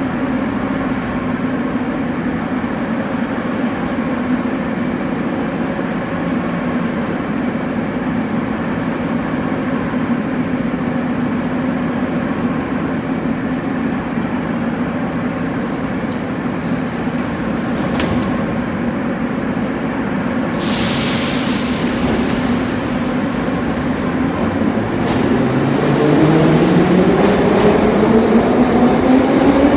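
Metro train standing at an underground platform with a steady hum, then a loud hiss of air about two-thirds through, then the traction motors' whine rising in pitch as the train pulls out and accelerates away.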